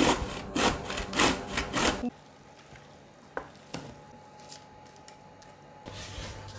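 Zucchini being grated on a metal box grater: about five quick rasping strokes in the first two seconds. Then much quieter, with a couple of light knocks as the grated zucchini is stirred in a bowl.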